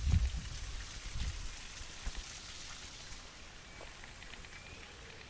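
Light rain pattering steadily on forest leaves and ground, with a few low bumps on the microphone in the first second and a half.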